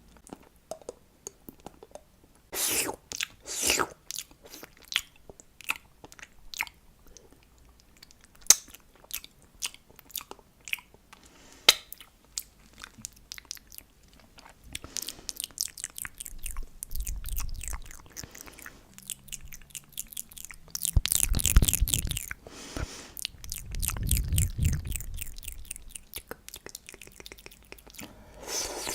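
Close-miked ASMR mouth sounds with honey: sticky, wet chewing, smacking and tongue clicks. Many separate clicks, with longer spells of denser smacking about 3 seconds in, between about 15 and 18 seconds, and again between about 21 and 25 seconds.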